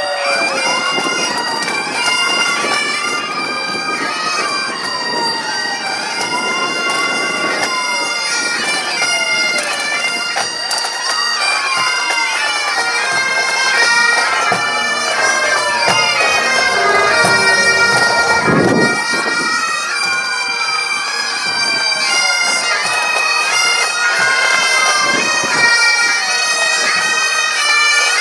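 Pipe band's Highland bagpipes playing, steady drones under a changing chanter melody. A siren wails up and down behind the pipes throughout.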